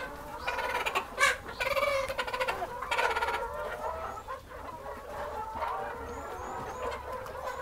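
A flock of young laying hens clucking and calling, with the loudest calls in the first three seconds.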